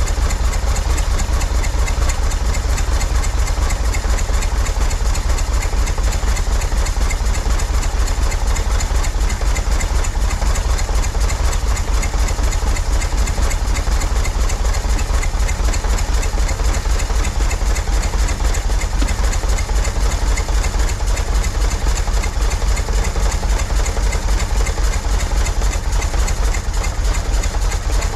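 1963 Corvair air-cooled flat-six idling steadily at about 500 to 600 RPM, its idle held up by a turnbuckle on the throttle linkage while the carburettors are being resynchronised.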